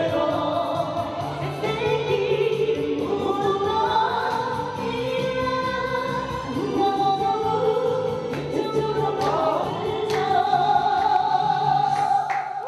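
Singing over backing music, the voices holding long notes above a steady bass line.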